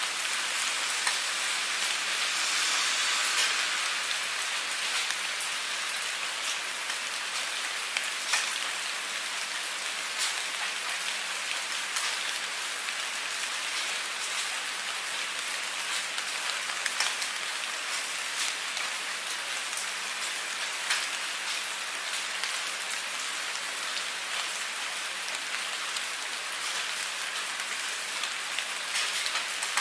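Steady rain falling: an even hiss with scattered louder drops ticking through it.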